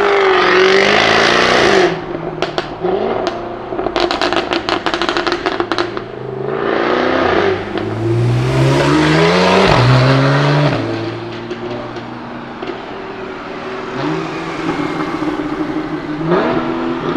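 Jaguar F-Type V8 R's supercharged 5.0-litre V8 accelerating hard with rising revs, then a rapid string of loud exhaust pops and crackles on lift-off. It revs up hard again, then settles to lower, steadier running with a last rise near the end.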